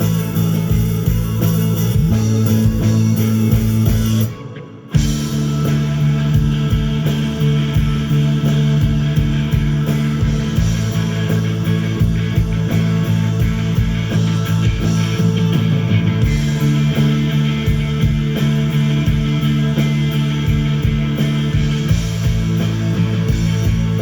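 Live rock band playing an instrumental passage, with guitars and bass guitar over a steady beat. The sound cuts out abruptly for about half a second around four seconds in, then comes back.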